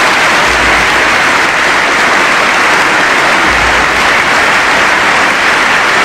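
A large audience applauding, many hands clapping loudly and steadily without a break.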